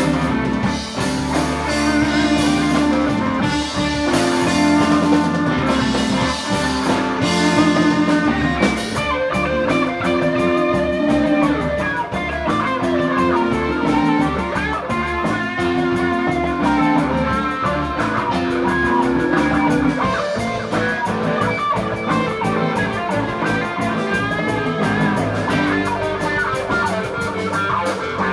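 Live rock band playing an instrumental jam: an electric guitar line over keyboard, bass and drums, with a repeating low riff through the first two-thirds and cymbals throughout.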